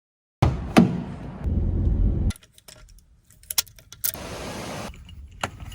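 A sharp thud about a second in over a low rumbling handling noise, then a run of light metallic jingles and clicks like keys being handled.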